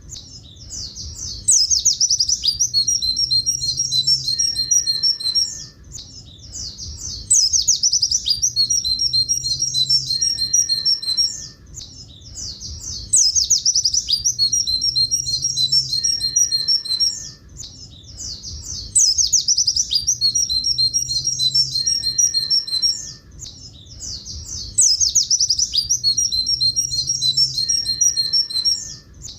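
Pleci buxtoni white-eye singing its long 'tulit tulit' klakson song: a quick burst of high notes followed by a run of repeated 'tulit' notes. The same phrase of about four seconds comes back about every six seconds, with short gaps between.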